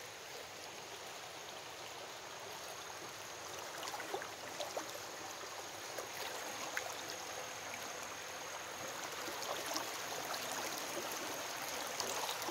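Shallow creek water running over rocks: a steady rushing babble that grows a little louder near the end, with a few faint clicks about four to five seconds in.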